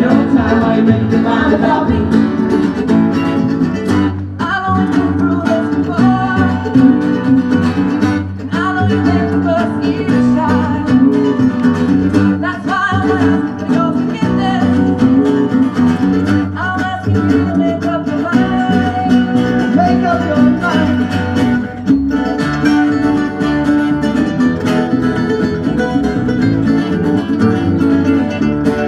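Live acoustic string band music: upright bass, acoustic guitars and mandolin playing together.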